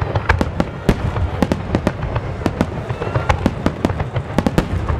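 Star mine (rapid-fire barrage) of aerial firework shells bursting, with several sharp bangs a second over a continuous low rumble.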